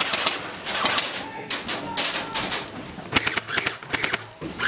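Airsoft guns firing in several rapid bursts of clicks, each burst lasting up to about a second, with short gaps between.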